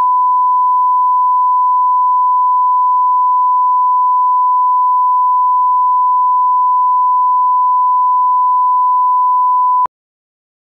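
Broadcast bars-and-tone test signal: a steady 1 kHz line-up tone, one unchanging pitch, cutting off abruptly about ten seconds in.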